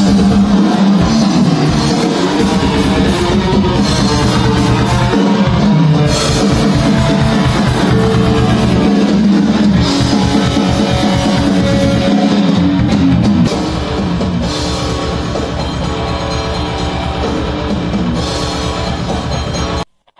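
Rock music with electric guitar and a drum kit playing, a little quieter from about two-thirds of the way through, then cutting off suddenly just before the end.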